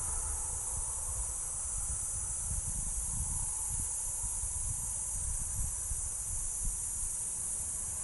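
Chorus of cicadas (chicharras) in a mangrove forest: a steady, high-pitched buzz that never pauses, with a low rumble underneath.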